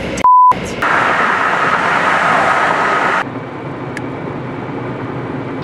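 A short steady beep tone, then loud road and wind noise of a car driving on the highway, heard from inside the cabin. About three seconds in the noise cuts abruptly to a duller, steadier road noise.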